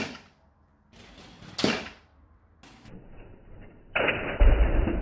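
Lego Technic models colliding: sharp plastic knocks, the first at the start and another about a second and a half later. Near the end comes a louder, duller rumbling rattle.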